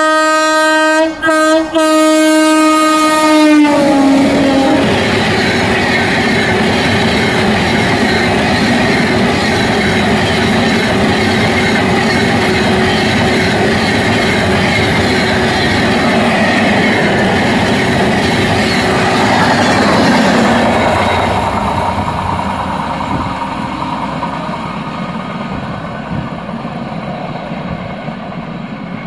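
Indian Railways electric locomotive horn sounding with a few short breaks, then dropping in pitch about three and a half seconds in as the locomotive passes at speed. It is followed by the loud wheel and coach noise of a long passenger train going by, which fades away over the last several seconds.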